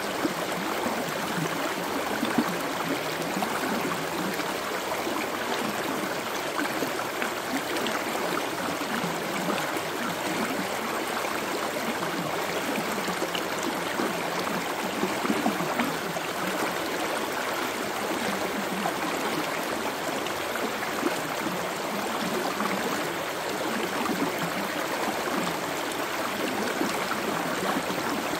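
Running water: a steady, even rush like a stream flowing.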